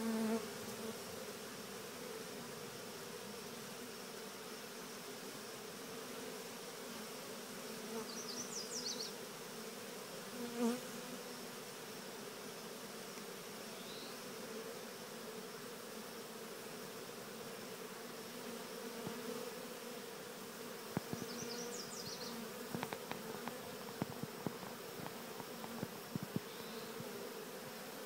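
A honeybee swarm buzzing steadily in a low, even hum as the bees walk into a top-bar hive. A few short high chirps, a knock about a third of the way in, and scattered clicks in the second half rise over the hum.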